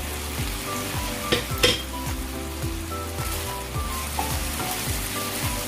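Diced pork and pork liver sizzling in a hot frying pan while a wooden spatula stirs them, with two sharp knocks of the spatula against the pan about a second and a half in. Background music with a steady beat underneath.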